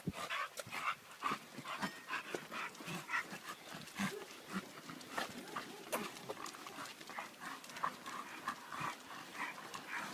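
Two bully-breed dogs straining on their leashes, making short, irregular breathing and huffing sounds several times a second, with sharp clicks scattered through.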